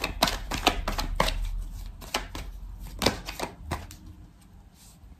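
Divination cards being shuffled and handled: a quick run of sharp clicks and flicks that thins out after about two seconds and dies away near the end.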